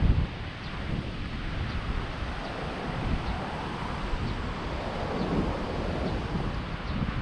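Wind buffeting the microphone over the wash of sea waves, with a strong low rumble and a louder gust at the very start.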